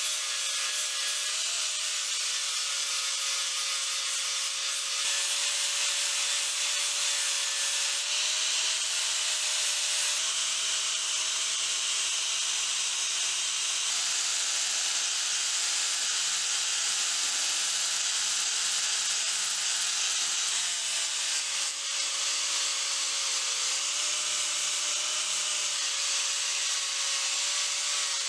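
Electric angle grinder with a sanding disc grinding the steel head of a ball peen hammer: a steady motor whine under a dense, hissing rasp of abrasive on metal. The whine wavers slightly in pitch as the disc bears on the metal.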